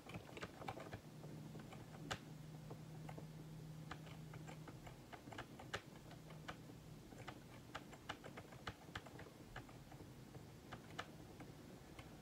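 Near silence broken by faint, irregular clicks scattered throughout, over a faint low hum that fades out about halfway.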